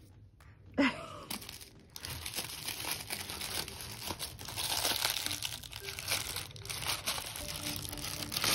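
Crinkly plastic wrapper of an L.O.L. Surprise toy package being torn open and crumpled by hand, a steady crackling from about two seconds in. A brief voice sound about a second in.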